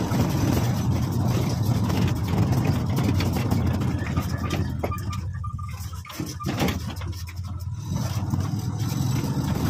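Small motorcycle engine running steadily while riding along a road, a low hum under road and wind noise. It goes quieter for a few seconds midway, then picks up again.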